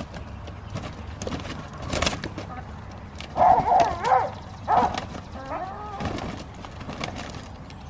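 Two hens fighting to settle their pecking order: wing flapping and scuffling, with a burst of loud squawks a little past halfway and a lower call soon after.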